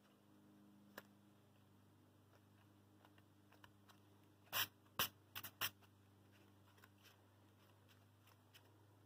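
Hands pressing and patting a small chalkboard-painted panel down onto a foam block as hot glue sets: a light tap about a second in, then a quick run of five taps around the middle, over a faint steady hum.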